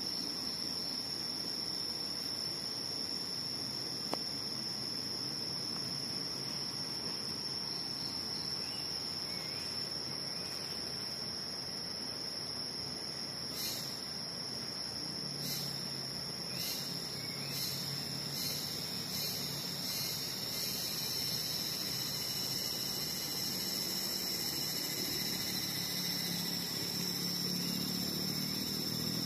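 Evening insects calling: a steady, high-pitched buzz that never lets up, joined about halfway through by a run of short, sharp chirps spaced roughly a second apart.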